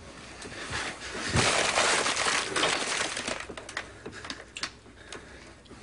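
Something breaking with a crash. A thump about a second and a half in opens a rush of crashing noise lasting about two seconds, then scattered small clicks die away.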